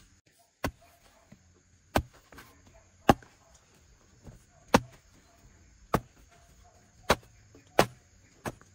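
Garden hoe blade chopping into dry, packed sandy soil: about eight sharp strikes, roughly one a second.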